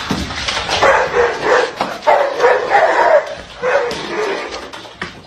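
A dog barking repeatedly, a short call every half second or so, fading away near the end.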